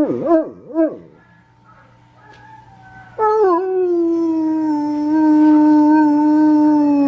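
Dog howling: a wobbling howl trails off about a second in, and after a short pause a single long, steady howl begins about three seconds in, sliding down slightly at its start.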